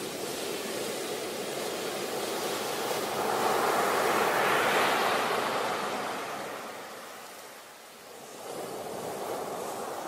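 Ocean surf breaking on a beach: a wave's rush swells to its loudest about halfway through, dies away to a lull about eight seconds in, then the next wash rises.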